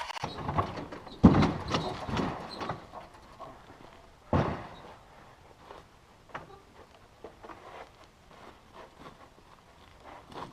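Wooden knocks and scraping as a log rafter is slid and worked into place on the roof frame. A cluster of thuds comes about a second in, the loudest single knock about four seconds in, then fainter scattered clicks.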